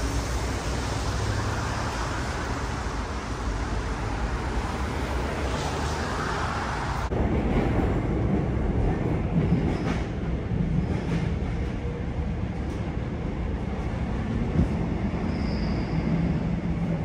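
About seven seconds of steady outdoor street noise, then, after a sudden cut, the inside of a moving Seoul Subway Line 2 car: a steady low rumble of wheels and motors with a hum and a few sharp clicks from the running gear.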